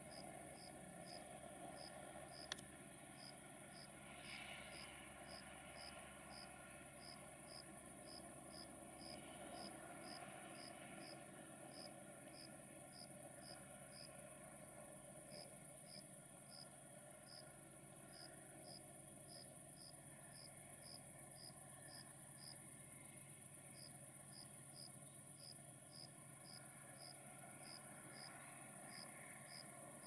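Crickets chirping in an even rhythm, about two and a half short high chirps a second, pausing briefly twice, over a faint steady high hiss of insects.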